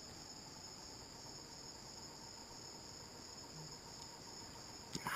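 Night-time insect chorus: a steady, high-pitched chirring with a slight regular pulse, and a couple of faint clicks near the end.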